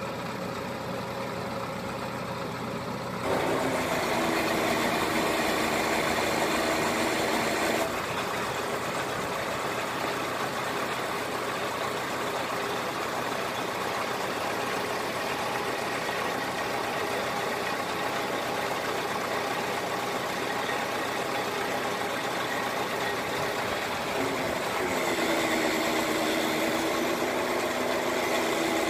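Crane truck's engine running steadily, stepping up to a louder, higher run about three seconds in, settling back after about five seconds, and speeding up again near the end as the crane boom is worked.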